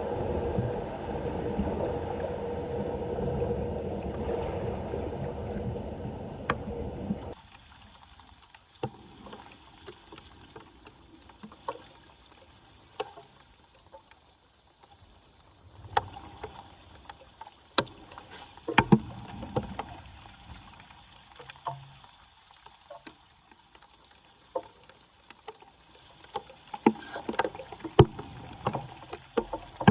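Floodwater rushing steadily for about the first seven seconds, cutting off abruptly; then quieter water with scattered splashes and sharp knocks, growing busier near the end.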